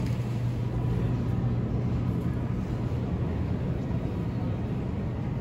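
Steady low hum of a large supermarket's background noise, with no distinct events.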